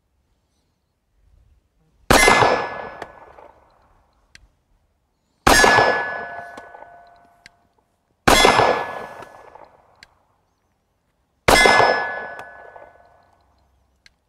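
Four shots from a Kahr CW9 9mm pistol, about three seconds apart. Each shot is followed by a steel target clanging and ringing out for about two seconds.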